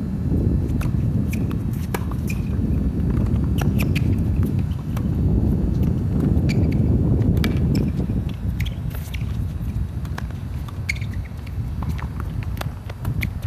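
Wind buffeting the microphone with a steady low rumble, over the sharp pops of a tennis ball being served and rallied, struck by rackets and bouncing on a hard court. Short shoe squeaks on the court surface come between the hits.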